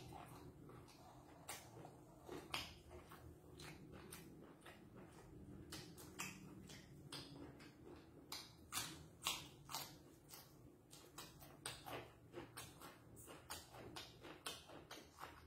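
A man chewing a mouthful of raw beef salad and fresh herbs close to the microphone: faint, irregular wet mouth clicks and smacks, coming thicker from about eight seconds on.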